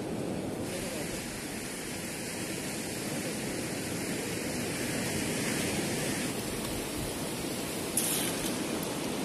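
Steady rushing noise of wind and surf, with a short splash near the end as water is poured from a plastic bottle into a steel cooking pot.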